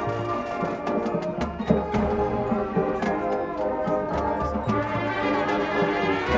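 High school marching band playing: brass with percussion, sustained brass chords over low bass notes and frequent drum and cymbal hits.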